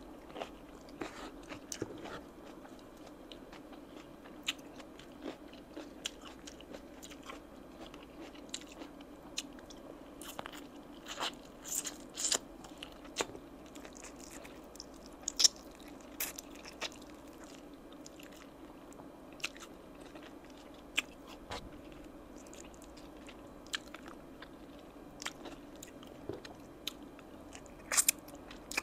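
Close-miked eating of oven-baked chicken wings and rice by hand: chewing with sharp wet mouth clicks, smacks and finger-licking at irregular intervals, a few louder ones near the middle and near the end.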